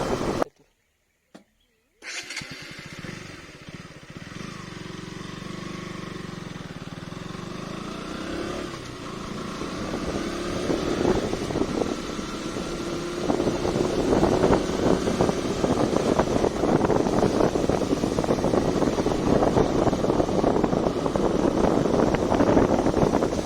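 KTM Duke 200's single-cylinder engine running under way, its pitch climbing slowly as the bike accelerates, with wind rushing over the microphone. The sound drops out briefly near the start, then comes back quieter and builds up.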